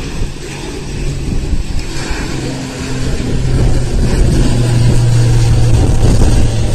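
High-wing twin-turboprop airliner climbing out overhead after takeoff: a steady propeller and engine drone over low rumble. It grows louder after a few seconds, and its pitch steps lower about four seconds in.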